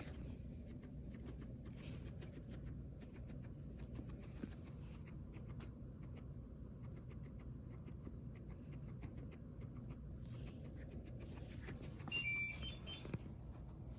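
Faint rustling and scratching from a guinea pig moving about its cage over a low steady room hum, with a brief high-pitched chirp near the end.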